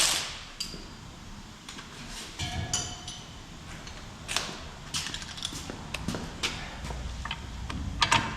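Metal hand tools clinking and clanking, with a socket extension being fetched and fitted. There is a loud clank at the very start, then scattered lighter clicks, one of them ringing briefly.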